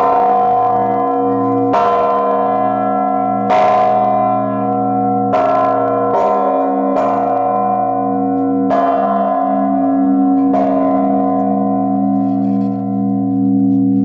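Large newly cast Orthodox church bell struck by its clapper, pulled on a rope, at its consecration. Eight strokes, mostly about every second and three-quarters with two quicker ones in the middle. Each stroke rings on into a deep hum that keeps sounding after the last stroke, about ten seconds in.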